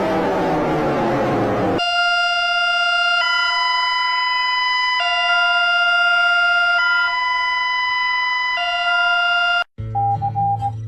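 Emergency alert alarm tones. A wailing sound falls in pitch over the first two seconds, then an electronic two-tone signal alternates between a lower and a higher pitch about every one and a half to two seconds. Near the end it cuts off suddenly and a different, beeping alarm tone begins.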